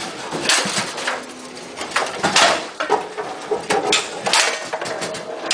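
Foosball being played on a Bonzini table: irregular sharp clacks of the ball being struck by the figures and knocking against the table, with the rods rattling.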